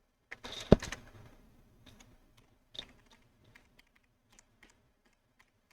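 Computer keyboard typing: a quick cluster of keystrokes with one loud knock under a second in, then scattered single key presses.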